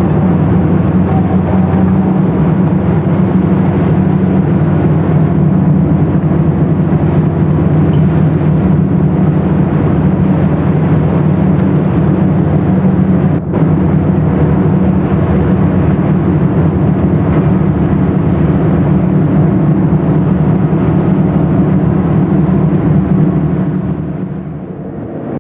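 Fishing vessel's diesel engine droning steadily, with water rushing and churning along the hull. There is a brief dropout just past halfway, and the sound fades down near the end.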